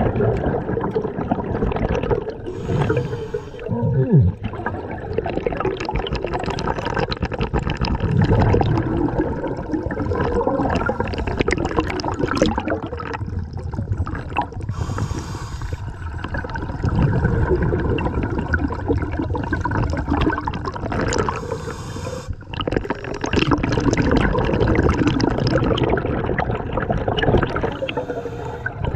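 Scuba diver's regulator breathing, heard underwater: long gurgling rumbles of exhaled bubbles, broken four times by a short hiss of the regulator.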